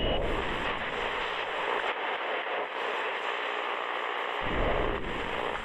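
Steady static-like hiss, joined by a deep rumble about four and a half seconds in.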